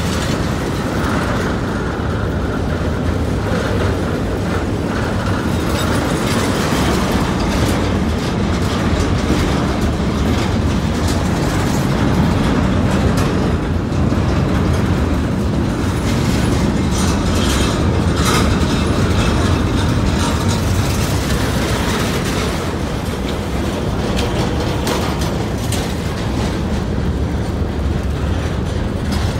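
Norfolk Southern intermodal freight train's container and trailer cars rolling past at close range: a steady rumble of steel wheels on rail, with scattered clicks and clanks from the wheels and couplings.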